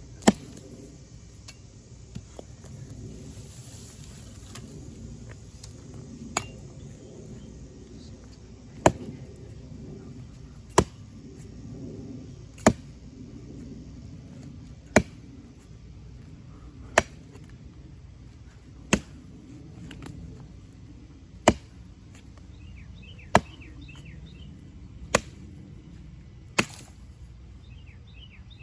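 Axe chopping into pine limbs and trunk, one sharp strike about every two seconds, a dozen in all. These are delimbing blows on a fallen pine.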